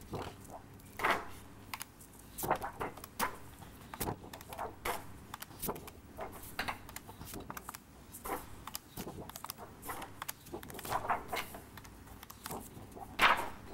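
Large cardboard number cards being pulled off a stack and flipped one after another: an irregular series of short paper flaps and slaps, roughly one or two a second.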